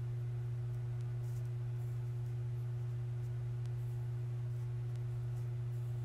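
Steady low electrical hum with a fainter, higher steady tone above it, unchanging throughout; a few faint light ticks.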